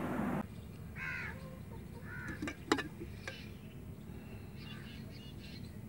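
Crows cawing several times in short arched calls, with two sharp clicks in the middle, the first the loudest sound.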